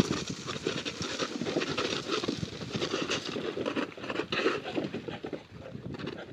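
Many piglets running over straw-bedded dirt: a dense, rapid patter of small hooves with rustling straw, thinning out near the end as the herd passes.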